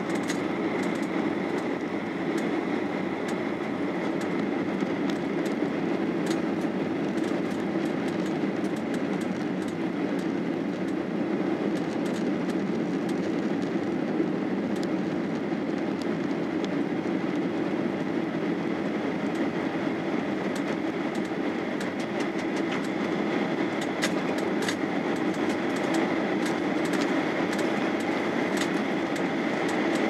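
Steady cabin noise inside a Boeing 737-800 descending toward landing: its CFM56 engines and the rush of air over the fuselage, with a faint steady whine. Scattered light ticks come through, more of them near the end.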